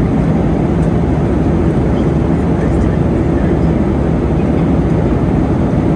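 Steady cabin noise of a Boeing 737-400 in cruise: the low drone of its CFM56-3 engines mixed with the rush of airflow, unchanging throughout.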